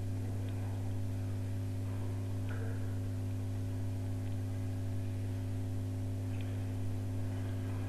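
Steady electrical mains hum on the recording, a low buzz with a row of overtones above it, unchanged throughout, with a few very faint ticks.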